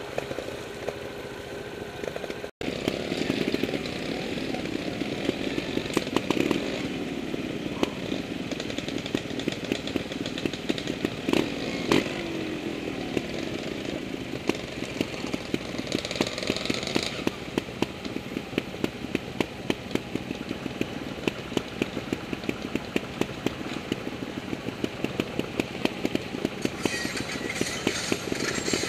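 Off-road trial motorcycle engines running and revving on a rough trail climb, with frequent sharp clicks and knocks over the engine sound. The sound drops out briefly about two and a half seconds in.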